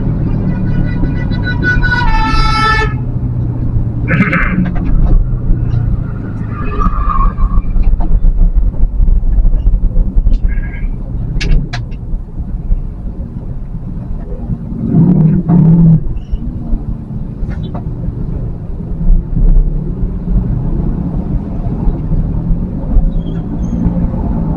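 Steady low rumble of a vehicle's engine and tyres driving through town traffic, with horns from surrounding traffic tooting several times: the loudest about two seconds in, then shorter toots around four, seven and ten seconds in.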